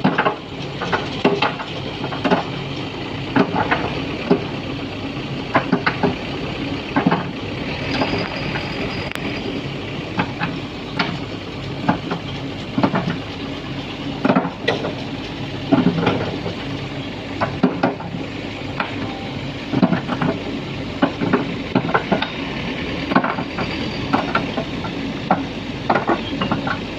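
Sany SY215C excavator's diesel engine running steadily, with repeated irregular clattering and scraping of crushed stone as the bucket digs and loads it.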